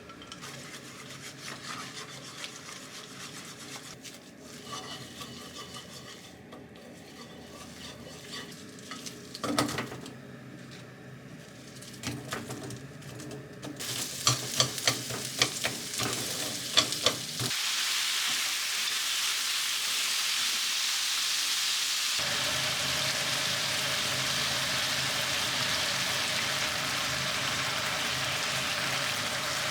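Light kitchen clatter and a quick run of utensil taps, then, a little past halfway, a steady sizzle of food frying in a hot pan that carries on to the end.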